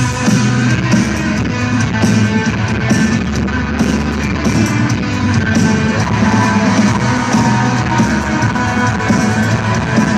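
Live rock band playing through an arena PA during a sound check: electric guitar, bass and drums.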